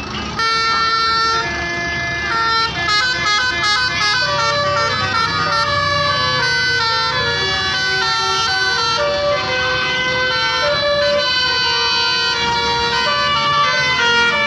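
Basuri 'telolet' multi-tone musical bus horn playing a tune of stepped, held notes, starting about half a second in, over a low engine rumble.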